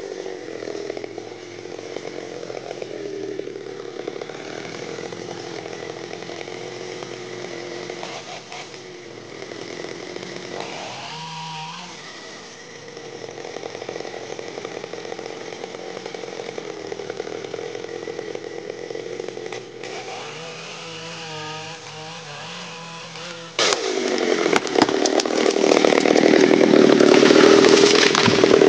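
Chainsaw running as it cuts through the trunk of a large tree, its pitch shifting now and then. About twenty-four seconds in, a sudden, much louder crash as the tree falls, with breaking and rushing that continues after it.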